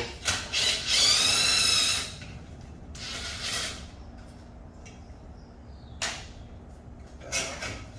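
A handheld power tool fitted with a 13 mm socket runs for about a second with a high, steady whine, loosening an exhaust bolt. Short clicks and clatter of tools and parts come before and after it.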